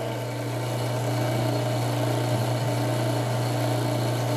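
Drill press running steadily with a small primer pocket reamer in its chuck: an even motor hum with a few steady tones over it, set to cut the military primer crimp out of 9mm brass.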